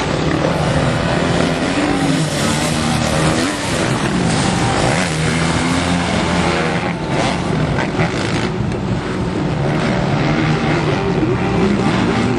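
Motocross dirt bike engines running on the track, their pitch rising and falling repeatedly as the riders rev and shift.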